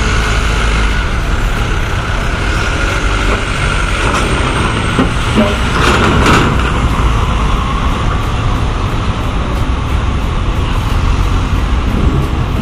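Diesel engine of a medium-size bus running as the bus pulls slowly past at close range, with a short louder burst of noise about six seconds in.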